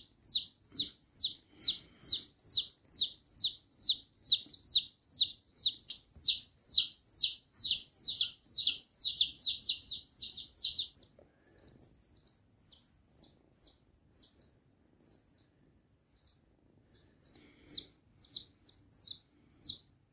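Baby chicks peeping: a fast run of short, falling peeps, about three a second, that turn fainter and sparser about eleven seconds in and grow louder again near the end.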